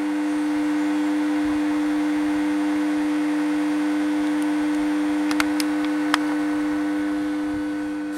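Steady electrical buzz with a strong low tone and a few fainter overtones, easing off near the end. A few light clicks a little past halfway.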